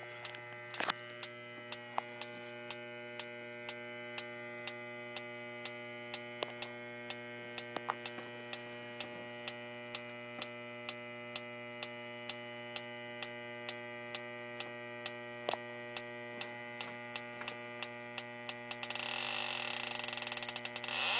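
Electronic refrigerant leak detector sniffing along a copper evaporator coil: a steady hum with the detector ticking about twice a second. About nineteen seconds in, a louder harsh rushing noise sets in as the detector begins to pick up leaking refrigerant.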